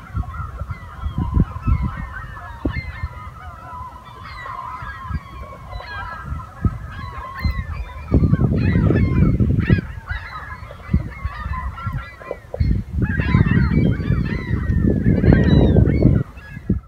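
A large flock of gulls calling constantly, many overlapping squawks, as the flock lifts off and circles. Loud low rushing noise comes in bursts about eight seconds in and again from about thirteen seconds until near the end.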